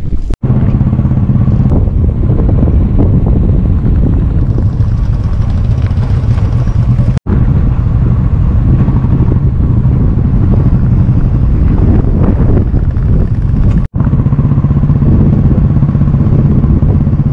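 Motorcycle engine running steadily while the bike is ridden over a rough unpaved road. The sound drops out for an instant three times.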